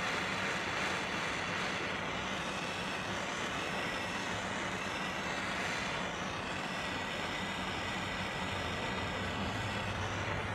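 Small handheld blowtorch burning with a steady hiss as its flame is played over window tint film on car glass to heat it.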